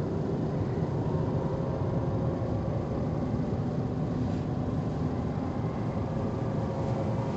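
A steady low rumbling noise with a faint hum in it, unchanging throughout.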